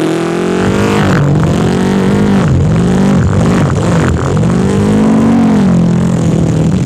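Racing car sound effect: a continuous engine-like drone that rises and dips in pitch again and again, like a car revving and shifting.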